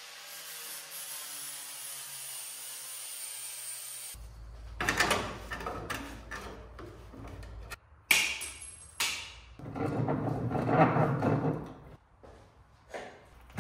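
Bodywork tools working a car's sheet-metal panels. First comes a steady hiss with a faint falling high whine for about four seconds, then scraping and rubbing broken by several sharp knocks.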